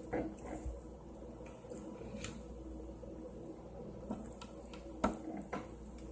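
Quiet handling of sticky slime: soft squishes and a scattering of small clicks and taps as it is scooped and worked, with a clearer tap about five seconds in.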